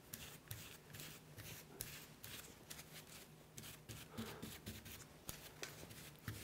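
Faint, irregular scratchy strokes of a broad paintbrush scrubbing thin gray paint over a carved brick-pattern panel.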